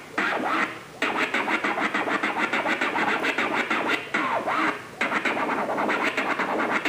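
Record scratching on a Numark PT01 Scratch portable turntable, the vinyl pushed back and forth by hand in rapid, choppy strokes. The scratching breaks off briefly about a second in and again a little after the fourth second.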